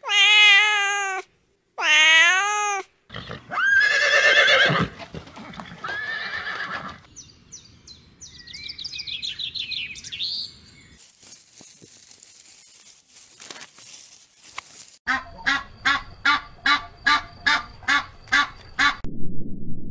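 A series of animal calls: a Scottish Fold cat meows at the start, budgerigars chirp and chatter in the middle, and a duck near the end gives a quick, regular run of about a dozen quacks.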